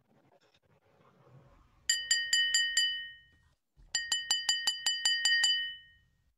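A wine glass tapped rapidly with a utensil: two runs of ringing clinks, about five a second, the second run longer. This is the call for a room's attention before a toast.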